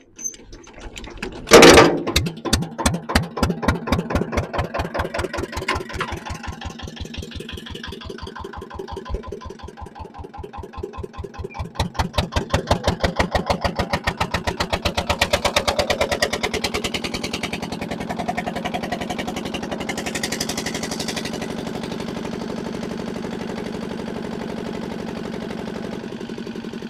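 Diesel engine of an old Benford dumper with no exhaust fitted, so it runs loud. There is a loud bang about a second and a half in, then separate firing beats that quicken and grow louder around the middle as the dumper is driven off, before it settles into a steady run.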